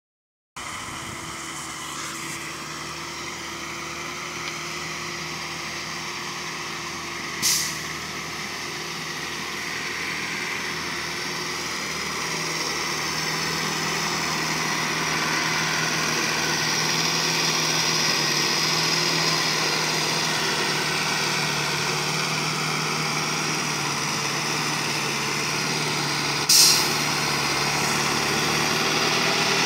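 Small Hoa Mai dump truck's diesel engine running as the gravel-loaded truck reverses slowly, growing steadily louder as it comes closer. Two short, sharp hisses stand out, about seven and about twenty-six seconds in.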